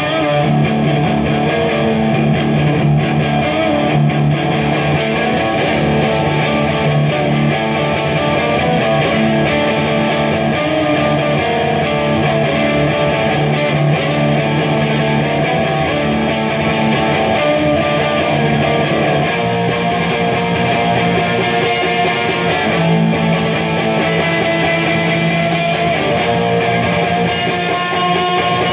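Electric guitar played through an amplifier: held notes and chords ring out and change every few seconds.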